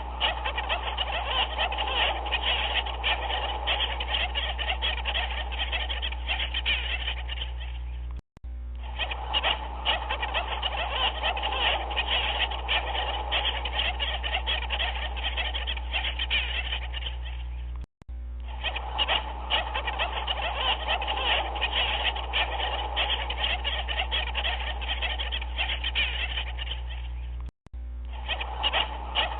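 A dense chorus of many rapid animal calls over a low steady hum. It is a looped recording that cuts out briefly and restarts about every ten seconds, three times here.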